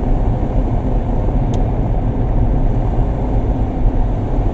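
Van's road noise heard from inside the cabin while driving: a steady rumble of engine and tyres, with one faint short click about a second and a half in.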